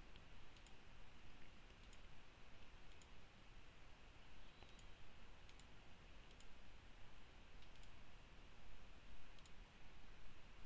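Faint, scattered computer mouse clicks, roughly one a second, over a low steady hiss.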